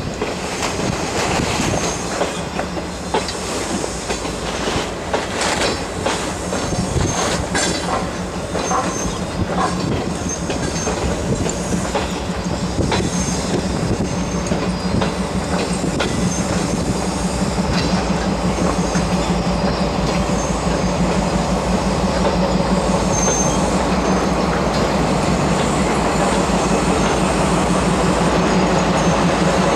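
Railway coaches rolling slowly over rail joints and switches: a string of wheel clacks and clunks over a steady rumble that grows louder toward the end, with occasional short high wheel squeals.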